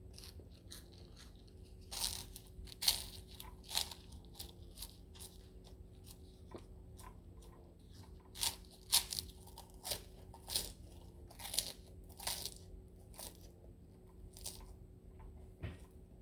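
A person chewing close to the microphone: irregular crunching bites and clicks, thickest in the middle, over a steady electrical hum.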